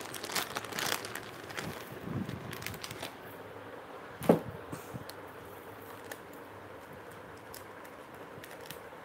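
Handling noise from a multi-strand green bead necklace being picked up and laid out on a table: scattered light clicks and crinkles in the first few seconds. One sharp, louder sound about four seconds in, then only a low steady background.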